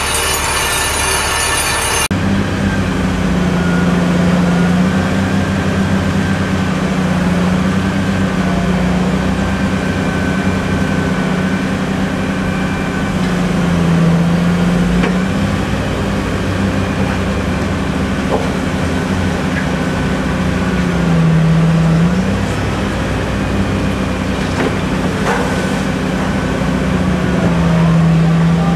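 Heavy diesel construction machinery running: a steady low engine drone whose pitch sags briefly every few seconds as it takes load, with faint high squeals. It follows an abrupt change about two seconds in from a denser, buzzing mechanical rattle.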